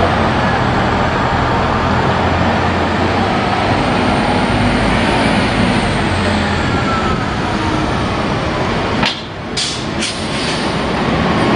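Articulated city bus running as it approaches and pulls in to the curb, a steady engine drone with traffic noise. Near the end there are a few short hisses of air as the bus stops.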